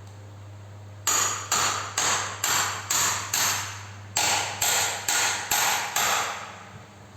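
A hand hammer striking metal in two runs of blows, about two a second, each blow ringing briefly: seven strikes, a short pause, then five more.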